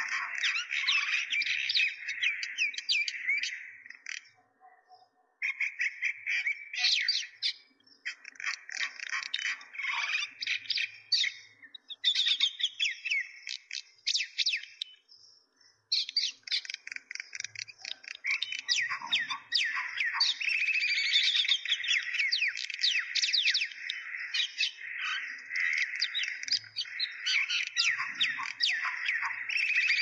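Dense chorus of small birds chirping rapidly and continuously, breaking off briefly about four seconds in and again about fifteen seconds in.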